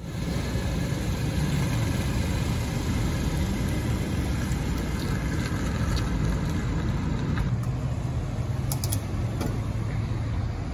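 A Hyundai SUV's engine running steadily as the vehicle pulls out and drives off, with a low hum and road noise.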